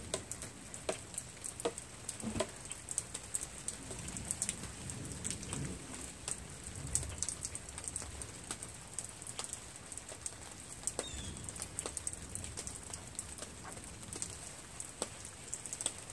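Faint, scattered clicks and taps of small engine parts being handled and fitted by hand while the breather hose is put on, over a steady faint high-pitched tone.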